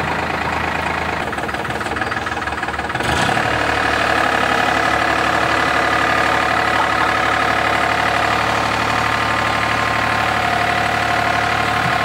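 Engine of a Nordmeyer GTB-2000 track-mounted drilling rig running while the rig drives on its crawler tracks. About three seconds in it gets louder and higher, then runs steadily under load.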